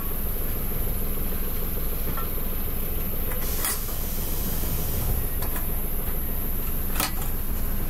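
Steady rumbling hiss from a ramen stall's cooking setup. A few sharp clinks of bowls and utensils cut across it, the loudest about halfway through and near the end.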